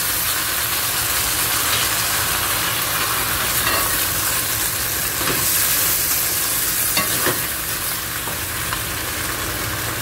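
Fish pieces and ginger sizzling in seasoning sauce in a hot stone-coated wok while being stir-fried with a spatula. There is a steady hiss, with a few short scrapes of the spatula on the pan a few seconds in.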